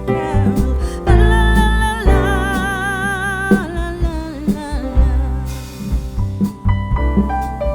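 Background music: a song with a vibrato-laden singing voice holding long notes over bass and a steady beat.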